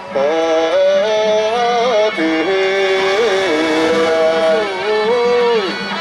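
Music: a loud, nasal reed-horn melody with sliding, bending pitches over a steady low drone, typical of suona (Taiwanese temple-procession horn) playing.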